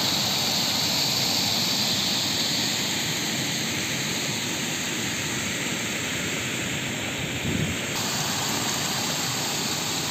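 Steady rush of floodwater pouring over a road, mixed with falling rain. The sound shifts slightly about eight seconds in.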